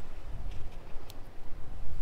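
Wind buffeting the microphone in a low, uneven rumble, over a few faint crackles from a small driftwood kindling fire just catching.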